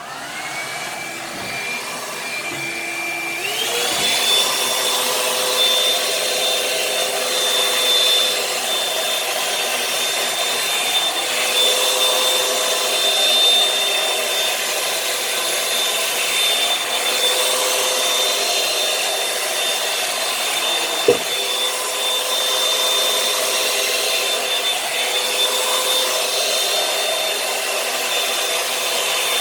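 Revlon One-Step hair dryer brush switched on and running, its motor whine over rushing air. About three and a half seconds in the whine steps up to a higher pitch as it goes to a faster speed, then holds steady. A brief knock about 21 seconds in.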